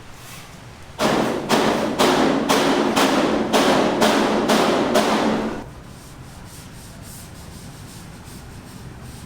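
Rhythmic scraping or rubbing strokes, about two a second, lasting some four and a half seconds before stopping abruptly.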